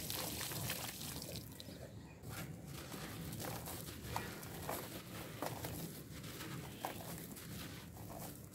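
Thick muddy red-dirt paste pouring in a stream onto a block of red dirt in a bowl for about the first two seconds. Then hands crumble the soaked block, and wet grit patters and clicks down into the bowl in many small ticks.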